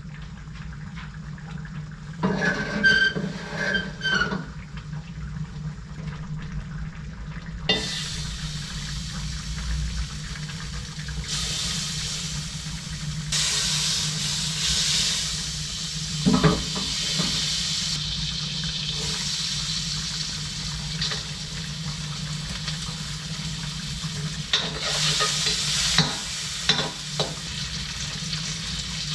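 Large steel wok on a gas burner hissing and sizzling in waves as it throws off steam. The hiss starts about a quarter of the way in and swells twice, with a metallic clank around the middle.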